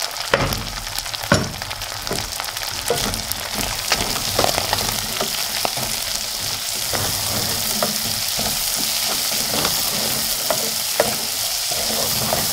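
Minced beef frying with freshly added red onions, spring onions and garlic, sizzling steadily while a wooden spatula stirs and scrapes through it against the pan. A couple of sharper knocks of the spatula come in the first second or two.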